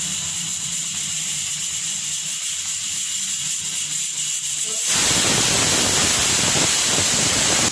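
Pigeon pressure cooker hissing steam at its weight valve. About five seconds in, a much louder rush of steam starts suddenly as the weight lifts: the cooker's whistle, the sign that it has reached full pressure.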